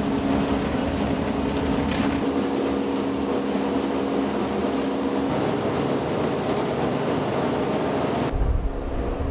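Plastic shredder running: a steady hum over a dense, even noise. The sound shifts about five seconds in and gives way abruptly to a lower rumble near the end.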